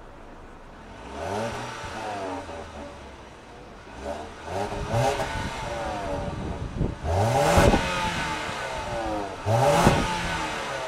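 2014 Ford Fusion SE's naturally aspirated 2.5-litre inline-four on its stock exhaust, heard at the tailpipes, revved four times from idle. Each time the pitch climbs and drops back, and the last two revs are the loudest.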